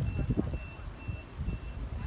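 A high-pitched electronic beep repeating about twice a second, like a vehicle reversing alarm. Under it is a low, buffeting rumble, loudest in the first half second.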